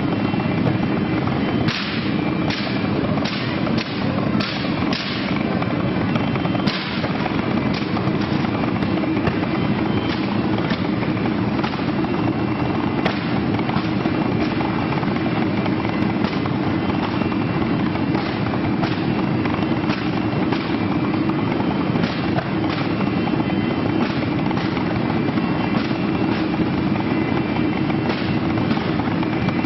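Propane flame effects running: a loud, steady roar with frequent sharp pops and crackles, thickest in the first few seconds.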